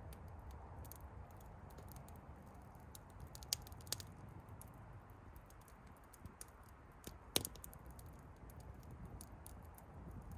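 Wood campfire crackling: a low steady burn with scattered small clicks and a few sharper pops, the loudest about seven seconds in.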